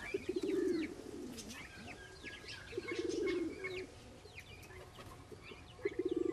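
Domestic pigeon cooing three times, each a low, rapidly pulsing coo about a second long, with higher chirps scattered in the background.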